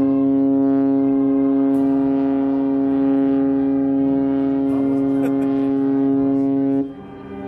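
Cruise ship Celebrity Millennium's horn sounding one long blast as it leaves port: a single deep, steady tone held for about seven seconds that cuts off shortly before the end.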